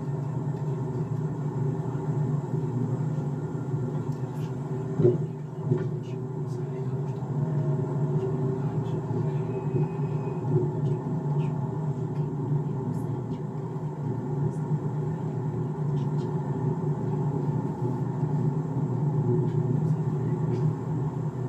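Steady low rumble of a car driving, road and engine noise, with a short knock about five seconds in.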